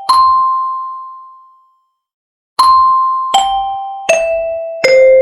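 A bell-like chime jingle: one high ringing note, a pause, then four struck notes stepping down in pitch, each left to ring out, like a doorbell or glockenspiel chime.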